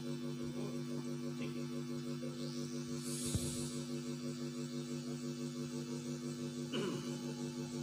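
Steady electrical mains hum from the sound system, with a short hiss about three seconds in.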